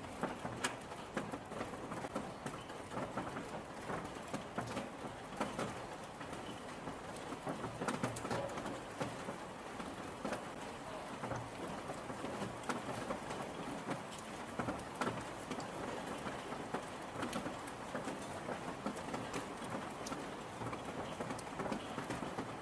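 Steady rain falling, with many individual drops clicking close by on a surface.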